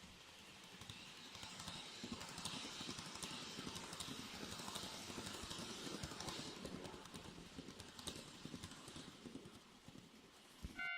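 N gauge model train running past, its wheels clicking rapidly over the rail joints; the sound grows louder about a second in, then fades away near the end.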